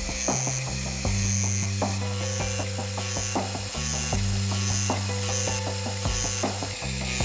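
Background music with slow-changing low chords, over rapid, irregular clicking from a milling machine's shop-made D-bit cutter taking fine cuts in brass.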